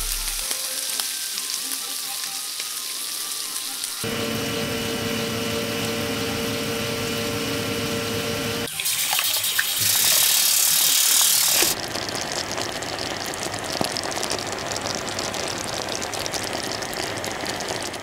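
A run of kitchen sounds: restaurant kitchen background noise, turning about four seconds in to a steadier hum with a few held tones. About halfway through, tap water runs loudly into a stainless steel pot for about three seconds. It then cuts to tomato sauce sizzling and bubbling in a frying pan, a dense crackle.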